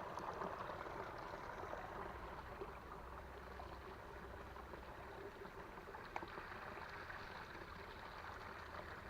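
A small creek running steadily, with one short click about six seconds in.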